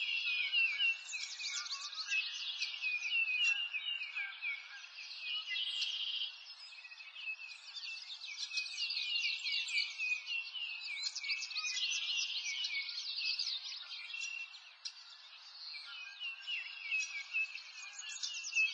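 Birdsong ambience: many small birds chirping and trilling at once, without a break.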